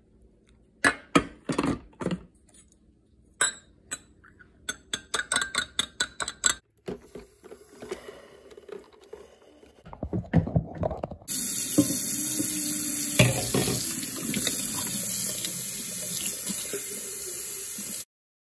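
A run of light clicks and knocks, then water running in a steady stream that stops abruptly near the end.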